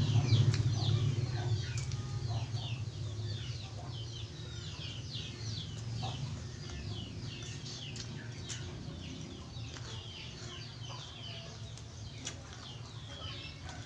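Continuous chirping of many small birds: short, high calls sliding downward, several a second. A low hum fades away over the first few seconds.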